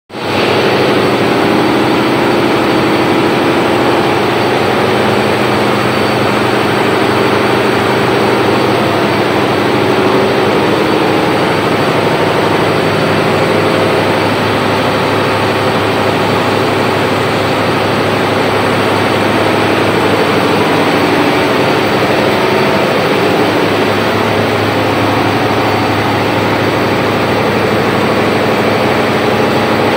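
Ricardo diesel generator set's engine running loud and steady at constant speed, an even drone with no change in pitch.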